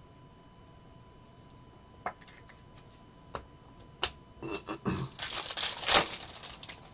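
Trading cards and a plastic card-pack wrapper being handled: a few light clicks and taps, then about two seconds of loud crinkling of the wrapper, peaking near the end.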